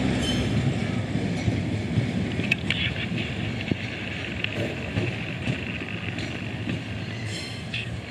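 Train rumbling and slowly fading away as it moves off, with a few short high squeaks, likely from the wheels.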